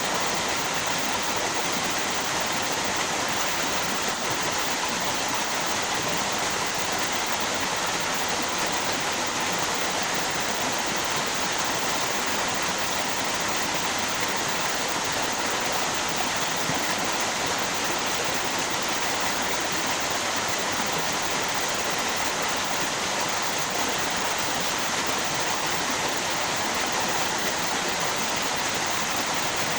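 Flowing water from a river and waterfall, a steady, unbroken rushing that stays level throughout.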